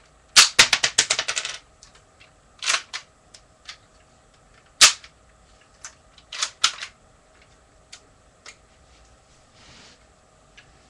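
Sharp plastic clicks and clacks from a LEGO brick-shooter gun being worked by hand: a quick run of about ten clicks in the first second and a half, then single clicks and short pairs every second or two.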